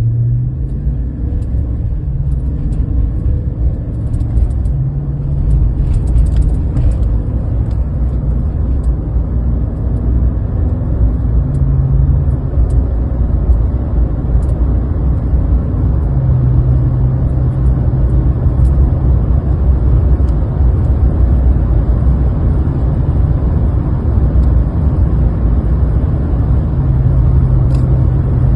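A 2020 Chevy Silverado's 5.3-litre V8 running with a steady low rumble, its serpentine belt on a newly replaced tensioner pulley.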